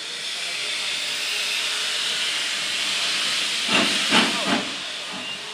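Steam locomotive hissing steadily, the hiss swelling over the first few seconds, then three loud chuffs in quick succession about four seconds in as the train starts to move off.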